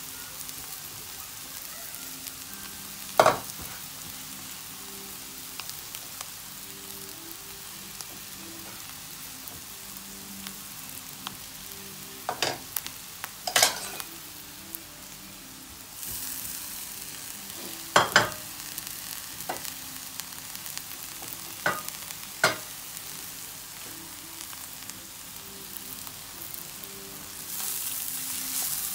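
Couscous sizzling in a frying pan as it is stirred, with a utensil knocking against the pan about six times. The sizzle grows louder about halfway through and again near the end.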